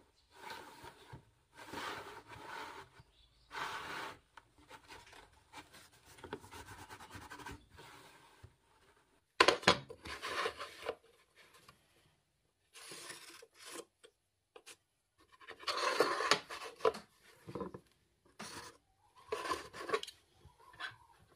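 Intermittent rubbing and scratching from a felt-tip marker drawn along a try square across carpet, with the square sliding and being set down on the carpet and fibreboard. The bursts are separated by short silent gaps, and the loudest come a little under halfway through and again about three quarters through.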